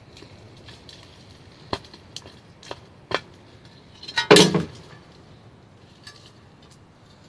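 Sharp clicks and knocks from garden hand work, about four of them spread over a second and a half. Then comes a louder clattering scrape about four and a half seconds in.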